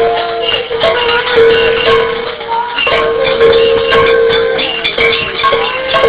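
Protest noisemakers: a steady horn-like tone held in long blasts with short breaks, several other held tones over it, and rattling and banging of pots and pans.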